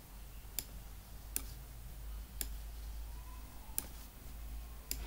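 Computer mouse clicking about five times, roughly a second apart, with a faint low hum underneath.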